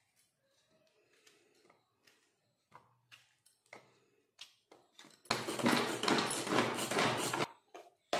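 Faint knife taps as a tomato is cut into a plastic chopper bowl, then about five seconds in a hand-operated vegetable chopper whirs and rattles loudly for about two seconds as it chops the tomato, onion and chilli.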